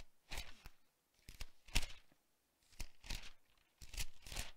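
Thin Bible pages being leafed through by hand: several short paper rustles with brief pauses between them.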